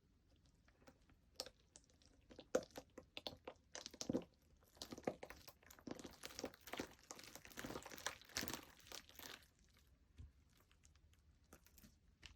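Slime being squished and pressed by hand, giving scattered small pops and clicks that thicken into a run of crackly crunching in the middle and thin out again near the end.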